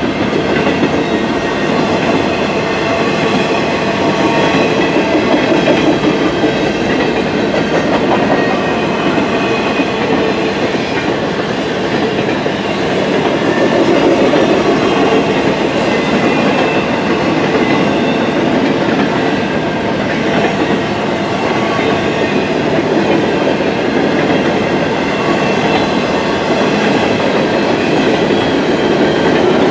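Double-stack intermodal container well cars of a long freight train rolling steadily past close by, their steel wheels rumbling and clattering on the rails.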